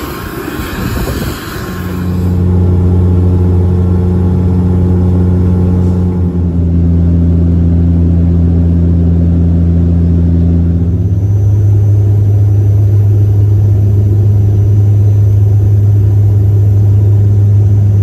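Turboprop airliner's propellers droning, heard from inside the cabin: a loud, steady low hum with a fainter tone above it. It comes in about two seconds in, and its pitch steps up slightly about eleven seconds in.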